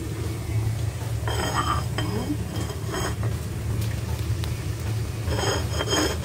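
White ceramic plates clinking and ringing as they are handled and set on the counter: a few clinks about a second in and a cluster near the end, over a steady low hum.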